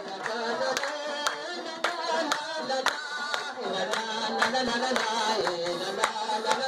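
A male singer's folk song with a group clapping hands in time, about two claps a second.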